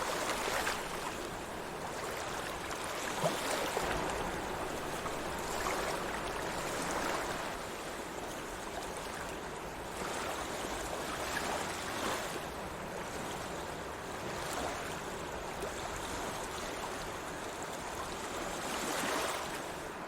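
Sea water washing and lapping continuously, swelling and easing every few seconds.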